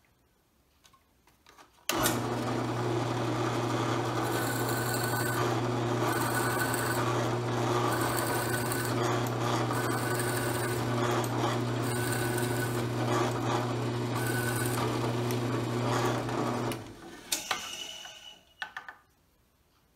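Drill press running with a twist bit boring into a wooden pen blank: a steady motor hum under a cutting hiss that swells and fades about every second and a half as the bit is fed in. It starts about two seconds in and stops about three seconds before the end, followed by a few brief handling sounds at the vise.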